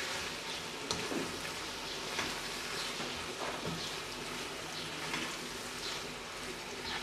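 Okra and tomato masala sizzling steadily in oil in a wok while it is stirred, with a few faint scrapes of the stirring implement against the pan.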